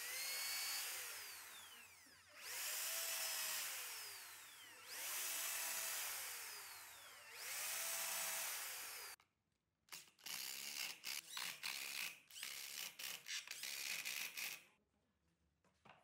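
Corded electric drill boring down through crossed pine boards into a tree stump, in four runs that each spin up and wind down. After a short pause comes about five seconds of rapid, choppy stop-start bursts.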